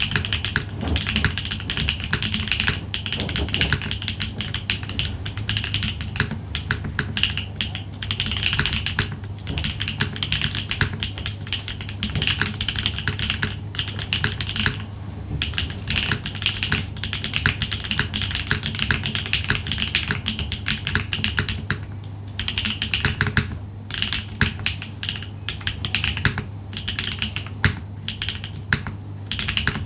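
Continuous typing on a Neo80 mechanical keyboard with HMX Ice Lotus strong-tactile switches on a POM plate, built without foam. The keystrokes come thick and fast, with a few brief pauses.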